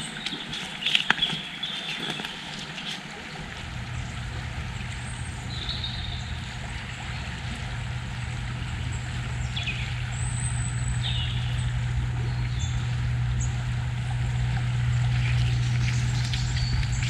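A steady low engine hum starts about three seconds in and slowly grows louder, with short bird chirps over it.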